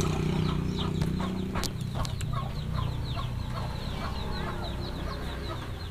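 Chickens clucking with many short, high peeps, over a low steady hum that weakens about two seconds in.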